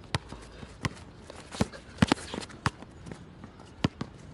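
Basketball dribbled hard on an outdoor court: sharp, irregularly spaced bounces, two in quick succession about two seconds in, mixed with sneaker footsteps on the court.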